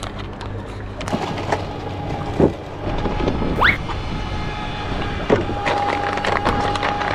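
Plastic packaging rustling and clicking as a fishing-lure packet and a line pack are opened and handled, over a steady low hum. A short rising squeak comes about three and a half seconds in, and a steady high tone starts about five and a half seconds in and carries on.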